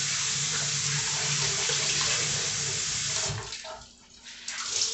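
Kitchen faucet running steadily into the sink, shut off abruptly about three seconds in, followed by a few faint knocks and drips.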